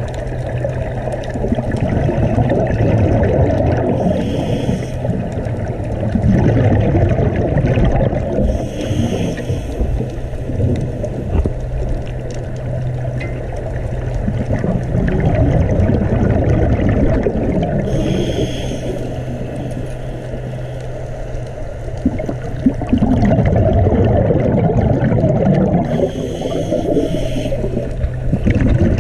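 Underwater sound: a constant low rumble of moving water with a steady low hum beneath it, and four hissing bubble bursts about a second long, several seconds apart, typical of scuba divers exhaling through their regulators.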